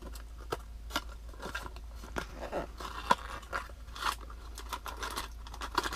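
Blind-box toy packaging being worked open by hand: irregular crinkles, crackles and small clicks.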